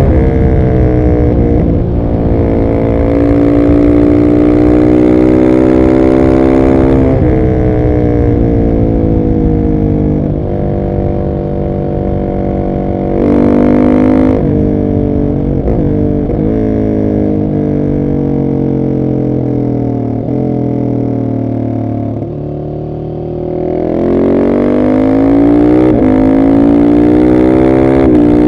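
Husqvarna 701 SM's 693 cc single-cylinder engine through a decatted Arrow exhaust, ridden hard. The revs climb and drop back several times as it pulls through the gears, then fall away while the bike slows, and it pulls hard again near the end.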